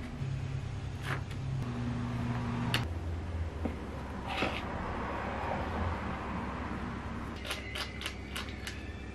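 Kitchen handling sounds of a metal ice-cream scoop working whipped cream: soft scraping of the scoop through cream in a bowl, then a quick run of small metallic clicks near the end as the scoop's spring release lever is squeezed to drop the cream. A low steady hum runs underneath.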